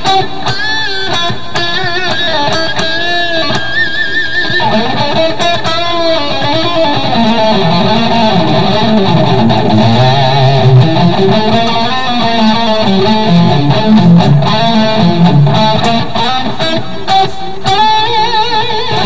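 Epiphone Les Paul electric guitar with EMG 81 and 85 active pickups, played through an amp with a little gain. Single-note lead lines with wavering vibrato on the held notes, dropping to lower notes in the middle. The tone has a light overdrive and rich harmonics.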